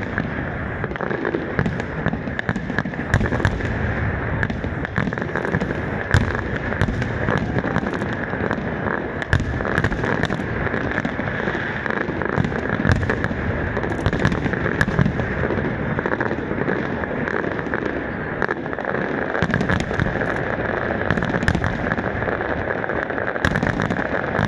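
Aerial fireworks going off continuously: many sharp bangs and crackles of bursting shells, one after another, with no pause.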